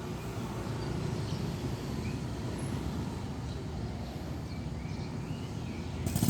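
Steady low background rumble with a few faint, short high chirps in the middle, and a louder rush of noise starting near the end.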